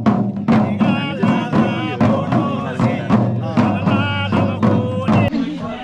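Music with a steady drum beat and a melody over a held bass, cutting off abruptly about five seconds in.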